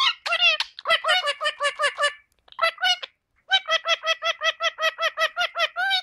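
Indian ringneck parakeet calling in quick runs of short, repeated pitched notes, about six a second, with a break of about a second in the middle.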